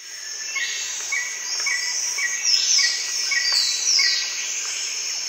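Forest ambience fading in: a steady high insect drone with birds calling over it, one short note repeated about twice a second and a few falling whistled calls in the middle.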